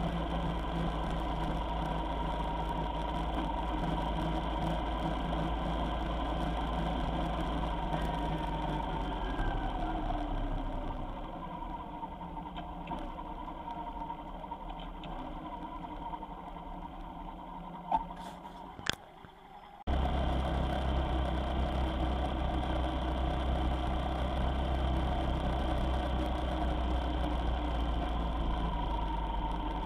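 Vehicle engine and road noise while driving, a steady low drone. It grows quieter partway through, with a brief high chirp and a short drop-out, then returns suddenly at full level.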